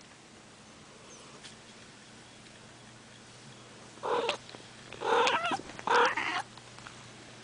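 A cat's voice: three short calls in quick succession, starting about four seconds in, after several seconds of faint steady sound.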